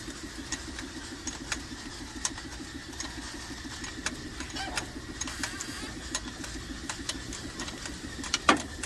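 Hyundai Porter 2's D4CB CRDi four-cylinder diesel engine idling with a steady, fast even pulse and light clatter, freshly fitted with a new oil pump, oil pump chain and timing chain and running smoothly. A louder single click comes near the end.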